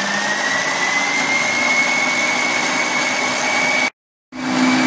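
Electric stand mixer running at speed, its beater whipping vegetable cream in a stainless steel bowl: a steady motor whine that rises a little in pitch over the first second or so and then holds. The sound cuts out for a moment about four seconds in and comes back.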